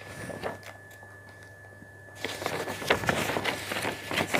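Sheets of paper rustling and crackling as they are handled and turned, the rustling busier in the second half, over a faint steady hum.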